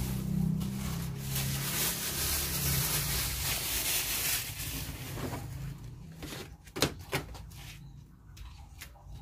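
Cloth rustling close to the microphone over a low hum that fades out, then two sharp knocks about seven seconds in.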